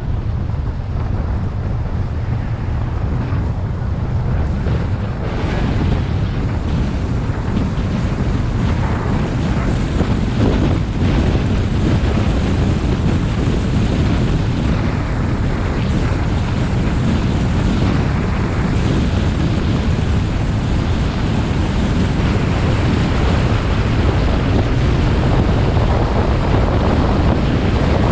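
Wind rushing over an outside-mounted microphone on a Ford pickup driving at road speed, with tyre and engine noise underneath. It grows a little louder about five seconds in.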